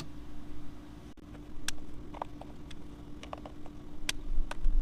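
Scattered sharp clicks and taps of tools and metal parts being handled during reassembly, over a faint steady hum.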